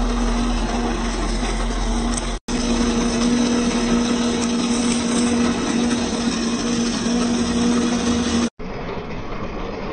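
Electric motor and gearbox of a 1:10-scale RC4WD TF2 Toyota Hilux crawler running with a steady whine as the truck drives. The sound breaks off for an instant about two and a half seconds in and again near the end; after the second break the whine is gone and a rougher mechanical rattle remains.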